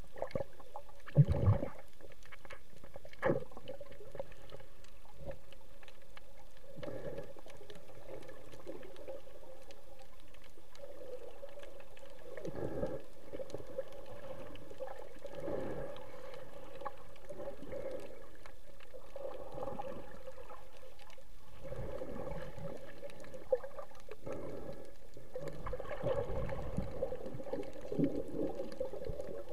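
Muffled underwater sound from a camera under the sea: a steady dull hum with water surging every few seconds as the snorkeler swims. A couple of sharp knocks come about a second in and again a few seconds later.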